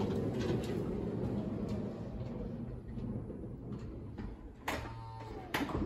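Honda Odyssey power sliding door running on its motor, a steady hum that slowly fades as the door travels, then two sharp clicks near the end as the freshly cleaned and re-greased latch works.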